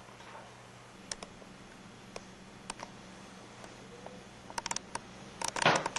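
Scattered light clicks and taps over a faint steady hum, with a quick run of clicks near the end followed by a louder cluster of knocks.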